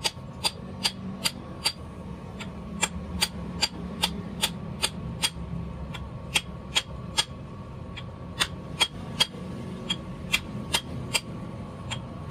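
Hand hammer tapping on the steel cylinder of a 50-ton hydraulic jack resting on a steel block: sharp metallic strikes with a short ring, about two or three a second, in runs broken by a few short pauses.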